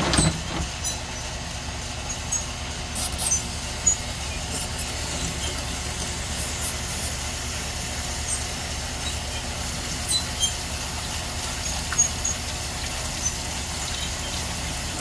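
A steady low machine rumble, with scattered light clicks and knocks of stones being handled during washing.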